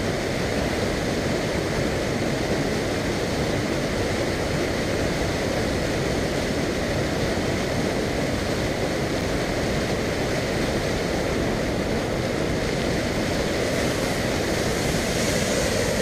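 Small waterfall pouring down a rock slab, a steady rush of water with no change in level.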